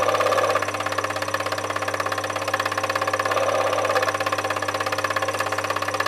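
Normal-8 film projector running: a rapid, even mechanical clatter over a steady motor hum.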